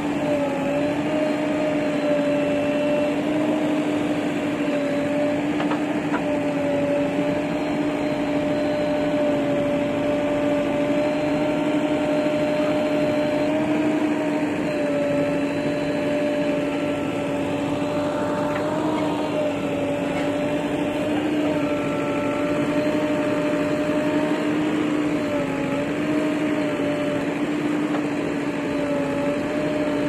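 JCB 3DX backhoe loader's diesel engine running at steady high revs with a constant drone, its pitch dipping briefly several times as the arm and bucket work under load. A short scrape or clank stands out about nineteen seconds in.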